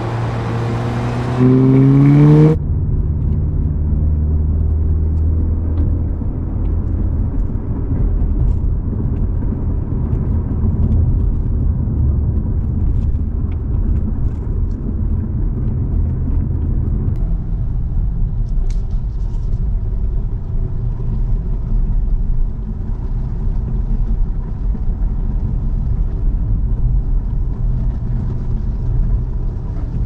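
Volkswagen Golf GTI's turbocharged 2.0-litre four-cylinder running steadily, then rising in pitch as it accelerates about a second and a half in. After an abrupt change it settles into a steady low rumble of the car cruising.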